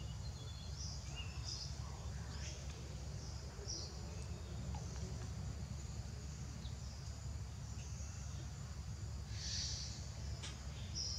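Outdoor forest ambience: a steady low rumble under scattered short, high chirps from small creatures, with a louder cluster of chirps about nine and a half seconds in.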